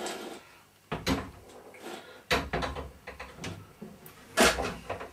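Steel box-section frame knocking and clattering against the top of a wooden plinth as it is fitted onto its locating pegs: several knocks, the loudest near the end, with quieter handling noise between.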